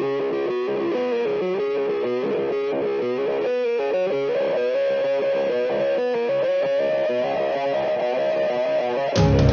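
Intro music: a distorted, effects-laden electric guitar plays a melody, and near the end heavy drums and bass come in and the music gets louder.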